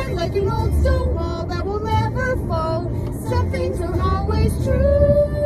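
A woman singing along with a recorded song in a moving car, her melody ending on a long held note, over the low steady hum of the car on the road.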